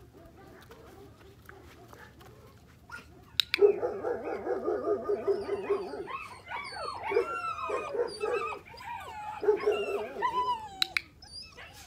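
Puppy whining and yipping. After a quiet first few seconds, a long wavering whine starts, followed by a run of high whines and yips that rise and fall in pitch.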